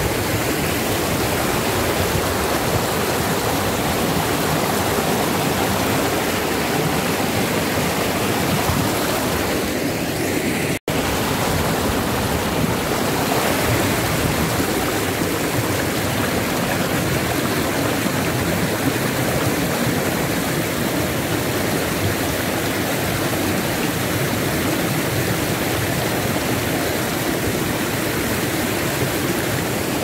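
Fast-flowing river rushing and churning over smooth rock slabs and boulders: a steady, loud wash of white water. About eleven seconds in, the sound cuts out for an instant.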